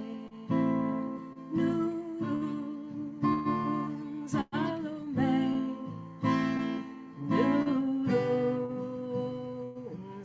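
Acoustic guitar strumming chords in a slow, even rhythm, accompanying a devotional Sufi chant, with held sung notes over it.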